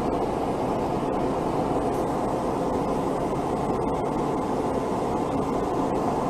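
Steady in-flight aircraft cabin noise: an even, unbroken rush of engines and airflow heard from inside the cabin.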